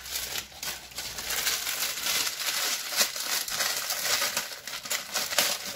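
Dense crinkling and crackling as a hand works dry pancit canton noodle blocks into a pot of boiling stock. It stops abruptly near the end.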